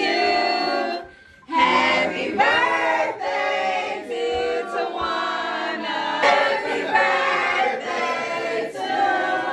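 Music with several voices singing together; it drops out briefly about a second in.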